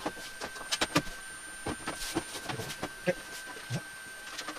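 Scattered clicks and knocks of hands handling a desktop PC and its cables while plugging it in, over a faint steady high-pitched whine.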